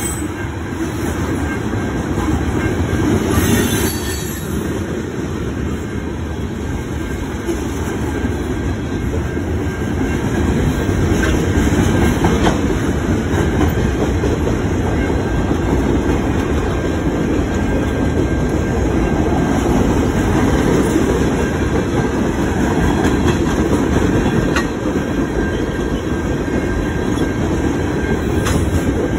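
Freight train cars rolling past close by: a loud, steady rumble of steel wheels on rail, with a click now and then as wheels cross rail joints.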